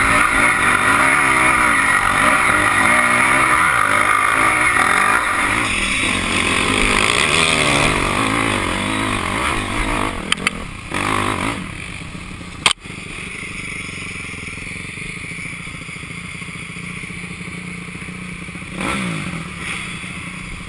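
Dirt bike engine revving hard on a climb, its pitch rising and falling as the throttle works. After a few clicks and one sharp knock about two-thirds of the way through, the engine runs steadily at a lower level.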